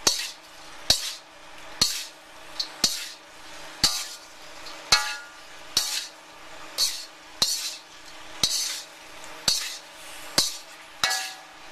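Metal spatula scraping and knocking against a wok while stir-frying shrimp and vegetables in sauce: about one stroke a second, each a sharp clink followed by a short scrape.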